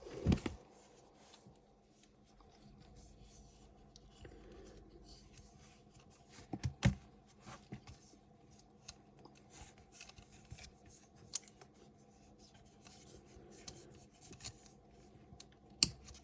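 Faint handling noise: light rubbing and scraping with scattered sharp clicks, the strongest near the start, a few about six to seven seconds in, and one near the end.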